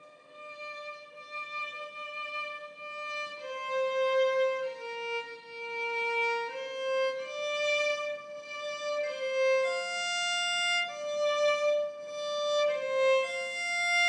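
Solo violin playing a slow, single-line melody of long bowed notes, each held about a second. It starts quietly and swells over the first few seconds.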